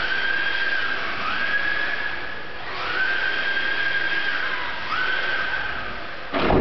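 Electric motor of a Tamiya TT01 radio-controlled drift car whining up in pitch and holding with each burst of throttle, four times over. A sudden loud knock comes right at the end.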